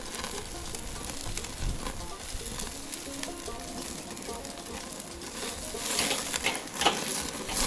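Ribeye steak sizzling as it sears on a charcoal kettle grill's grate, with fine crackling as rendered fat drips onto the coals and flares up. It grows louder about six seconds in, as tongs take hold of the steak.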